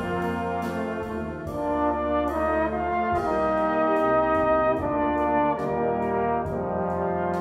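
Brass band playing full, sustained chords that change every second or so, over a steady percussion beat of about two to three strokes a second.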